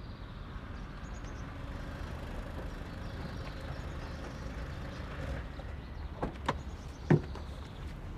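Rover 416 saloon car running at low speed as it pulls in and stops, a steady low rumble. Near the end come a few clicks and one sharp knock as the car's door is opened.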